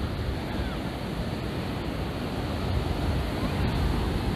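Ocean surf breaking and washing up a sandy beach in a steady roar of white water. Wind buffets the microphone, adding a low rumble.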